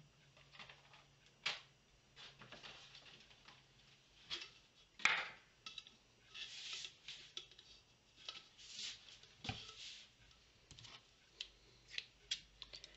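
Hands handling craft supplies on a tabletop: scattered small clicks and taps and a few short rustling swishes.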